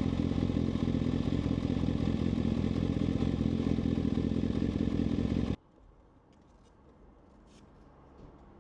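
Kawasaki ZX-6R's inline-four engine running steadily at a constant speed, then cutting off suddenly about five and a half seconds in, followed by a few faint light clicks.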